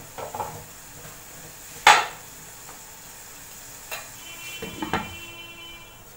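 Cookware clatter over a wok of chicken simmering in gravy, with a soft steady sizzle underneath. There is a sharp knock about two seconds in, then a few lighter knocks and a brief ringing around four to five seconds in as a steel-rimmed glass lid is set on the non-stick wok.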